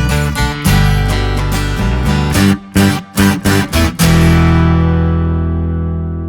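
Background music on guitar: rhythmic strummed chords with a few sharp stops, ending about two-thirds of the way through on a final chord that rings and fades.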